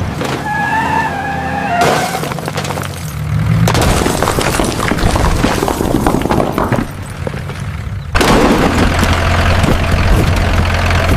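Cartoon crash sound effects over music: a short wavering pitched cry near the start, then a long run of crashing and shattering noise, and then, after a brief break, a steady low rumble like a vehicle engine.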